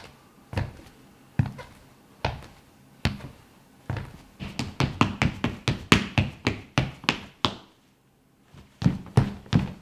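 Footsteps on a hardwood floor, recorded as Foley: slow, even steps at first, then quicker steps from about halfway, a brief stop, and quick steps again near the end.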